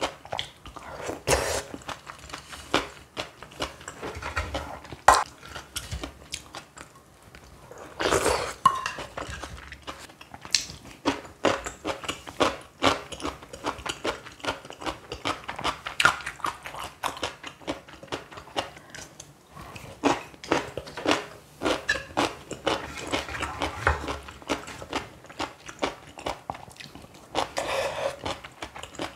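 Close-miked eating sounds: a person chewing and crunching mouthfuls of ramyeon and stuffed cucumber kimchi, with many short wet clicks and crackles. A few longer, louder noisy stretches come about a second in, about eight seconds in and near the end.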